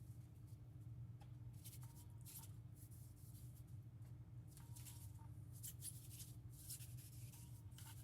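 Faint rustling and scraping of parts being handled, in several short spells, over a low steady hum.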